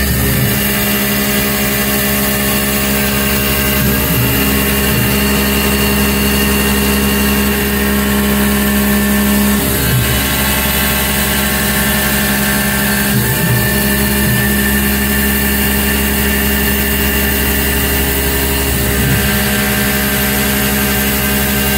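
Milling machine spindle running as an end mill cuts a metal plate: a loud, steady machine hum with a high hiss over it. The tone briefly changes about 4, 10, 13 and 19 seconds in.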